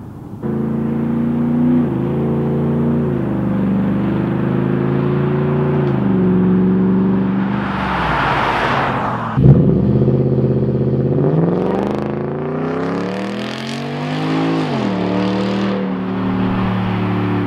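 2011 Ford F-150's 5.0 V8 through a full 3-inch exhaust with a Carven R-series muffler, driving past. The engine note rises and falls with the throttle and gear changes. A loud rush about nine seconds in, with the pitch dropping, marks the truck passing. It then revs up hard pulling away and drops at a shift near the end.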